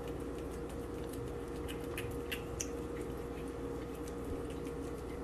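A cat nibbling at a crunchy treat held in the fingers: faint, scattered small clicks and crunches over a steady hum.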